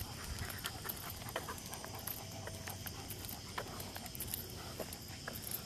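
Faint footsteps of a person and leashed German Shepherds walking on pavement: scattered light clicks and scuffs over a steady low rumble.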